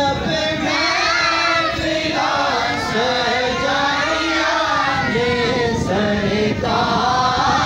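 A group of men's voices singing a naat together, a melodic devotional chant in Urdu, with short breaks between phrases and no instruments.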